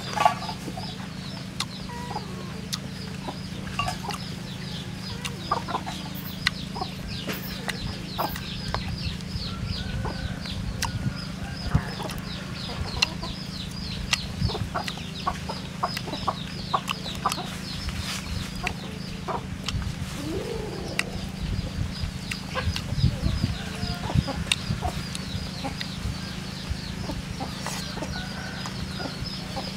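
Chickens clucking in the background, with scattered sharp clicks of bamboo chopsticks against a wire grill and fish, over a steady low hum and rapid high chirping.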